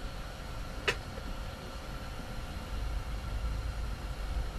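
Steady low rumble and hiss of strong wind against an ice-fishing tent, with propane heaters running inside. A single short sharp click about a second in.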